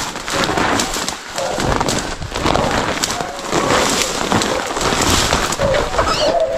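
Footsteps crunching quickly through dry leaves and brush, a steady run of crackles and snaps. Near the end, hunting dogs bay faintly.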